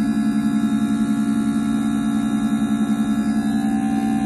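Common rail injector test bench running a Delphi injector through a volume test: the high-pressure pump and drive motor give a loud, steady hum with a fast, even flutter while the injector is pulsed.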